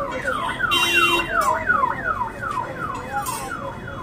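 Electronic siren sounding a rapid series of falling sweeps, about three a second, with a brief steady horn-like tone about a second in.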